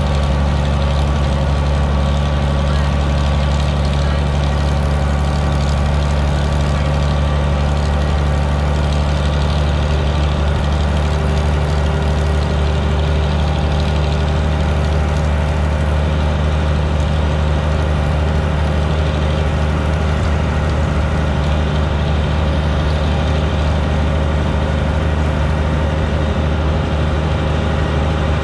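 Vintage tractor's engine running at a steady speed as the tractor drives along, heard up close from its hood beside the upright exhaust stack: an even, unchanging low drone.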